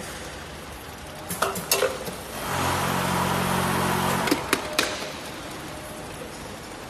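Scoop feeding machine cycling: a few sharp metallic clicks, then about two seconds of machine hum with a rattling hiss, then more clicks as it stops.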